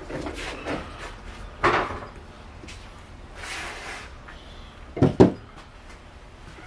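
Knocks and rustling of parts being handled in a car's engine bay: a sharp knock a couple of seconds in, a brief rustle, then a louder double knock near the end.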